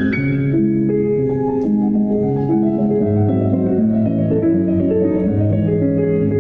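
Solo piano music from a recording: sustained notes in the middle register over repeated bass notes, following the tail of a fast rising run.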